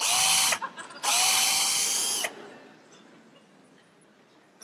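Power drill with a long bit boring lengthwise through a carrot, run in two bursts, a short one and then one of about a second, its motor whine rising as it spins up and cutting off abruptly each time.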